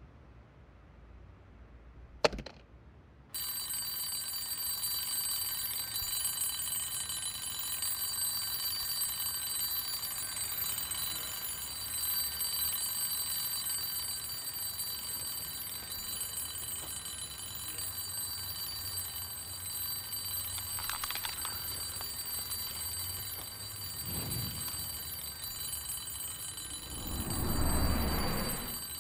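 A click, then about three seconds in an electronic alarm starts ringing, a steady high-pitched ring of several tones that keeps going without a break. A louder shuffling sound rises under it near the end.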